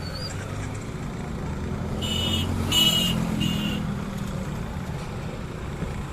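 A motor vehicle engine running steadily. Three short, high-pitched toots come in quick succession about two seconds in, the middle one the loudest.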